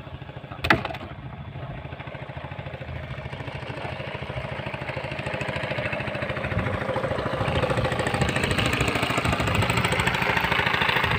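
Small outboard motor on a wooden boat running steadily, growing louder as the boat comes closer. A single sharp knock about a second in.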